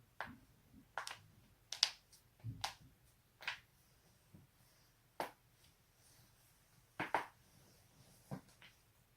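Human joints cracking: a series of about a dozen sharp pops at irregular intervals, a few coming in quick pairs.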